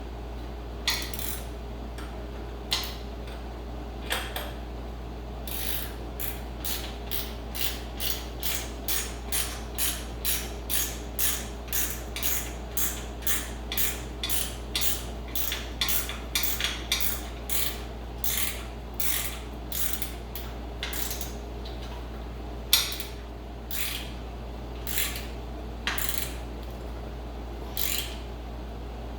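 Socket ratchet wrench being worked in short strokes, each stroke giving a quick burst of pawl clicks. The strokes come slowly at first, about two a second for a long stretch in the middle, then slow and become sparse again, as a bolt is run in and tightened.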